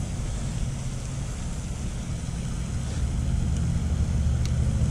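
Steady low rumble with an even hiss of water from a large pond spray fountain running, with one faint click about four and a half seconds in.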